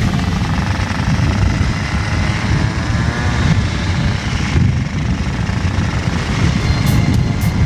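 A group of motor scooters riding along with their engines running, under heavy low wind rumble on the microphone of the moving scooter.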